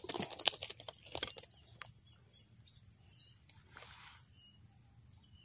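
Steady high-pitched insect drone, like crickets, with a few sharp clicks and rustles in the first second and a half and a short rustle near the four-second mark.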